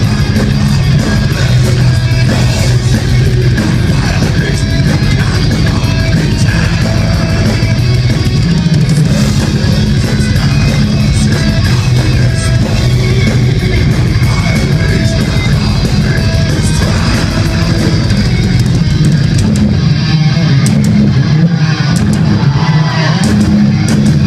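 Melodic death metal band playing live at full volume: heavily distorted electric guitars, bass and drums, with the singer's harsh vocals over them.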